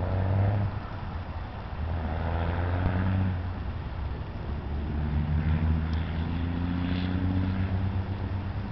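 Road traffic: vehicle engines giving a low, steady hum that swells a few times as vehicles pass.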